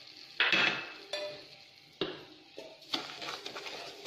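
Wooden spatula stirring and scraping granulated sugar around a nonstick pan with a little ghee: three sudden rasping strokes, each fading quickly.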